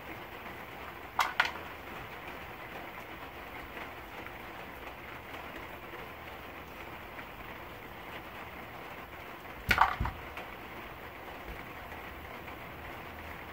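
Small metal parts clicking and clattering as the cover plate and its screws come off a small Zexel diesel injection pump by hand, in two short clusters: one about a second in, one just before ten seconds. A steady low hiss runs between them.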